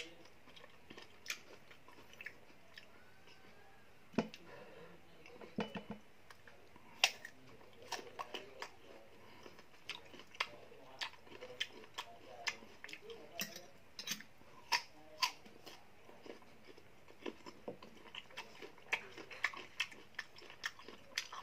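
Crisp bites and chewing of slices of unripe green Indian mango, with sharp, irregular crunches throughout.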